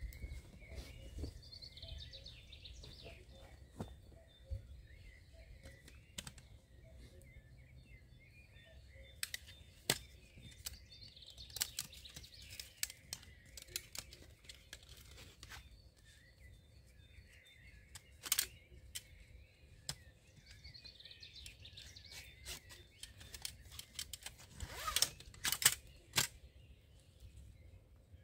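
Birds singing in woodland, in several spells, over scattered short clicks and knocks as a metal mess kit is handled. The loudest knocks come in a quick cluster near the end.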